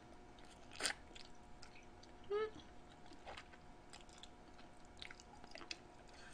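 Soft close-miked chewing of grilled pork trotter meat, with scattered small mouth clicks and smacks. A short hum from the eater comes about two and a half seconds in.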